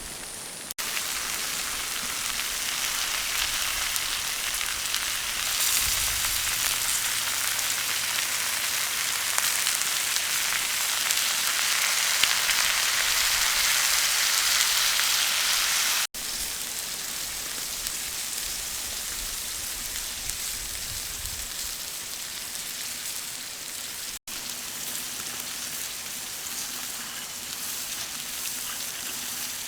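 Chicken wings sizzling as they cook, a steady hiss that grows louder for a stretch, with abrupt breaks about a second in, about halfway through and again later.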